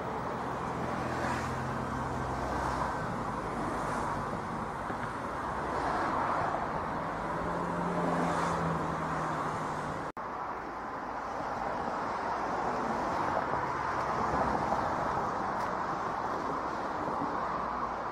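Jet engines of a four-engined Airbus A340 running steadily as the airliner taxis, a distant rushing hum with a low drone beneath it. A brief dropout about ten seconds in.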